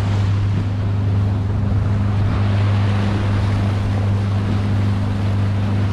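Small boat's motor running at a steady speed, a constant low hum, with wind on the microphone and water noise washing over it.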